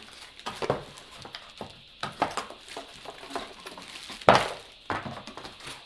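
Box and packaging being handled and cleared away: scattered crinkles, clicks and knocks, the loudest knock a little over four seconds in.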